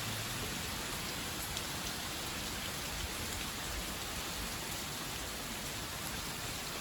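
Heavy rain pouring steadily, an even, unbroken hiss of rain on surfaces.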